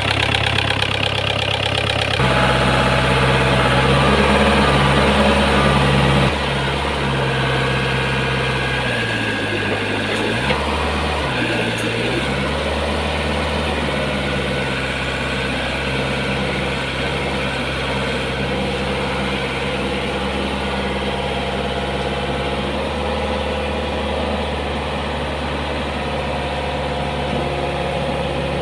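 Diesel engine of a Komatsu PC50 mini excavator running steadily, its speed sagging and picking up again twice about nine to twelve seconds in.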